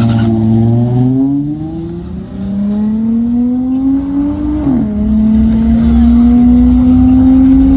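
Car engine accelerating hard under full throttle, its pitch climbing steadily, then dropping sharply once nearly five seconds in as the automatic transmission shifts up, and climbing again.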